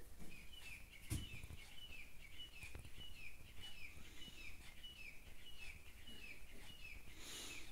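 A soft thump about a second in as a cat jumps down from a wall shelf and lands on the floor. Behind it, short high chirps, each falling a little in pitch, repeat steadily about two or three times a second, and there is a brief rustle near the end.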